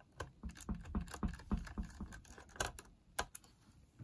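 Small screwdriver turning screws loosely into the circuit board of a vintage Sanyo M3330 personal cassette player: a quick, irregular run of light clicks and ticks that stops about three and a half seconds in.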